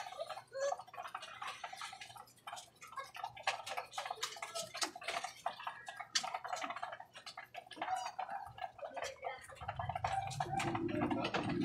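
Pigeons pecking grain from a feeder tray: a rapid, irregular run of sharp clicks. A low hum joins in about ten seconds in.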